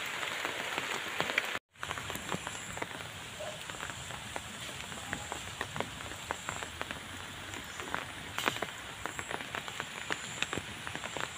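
Steady rain falling on the river, grass and leaves, a dense patter with scattered sharper drops. The sound cuts out for a moment about a second and a half in.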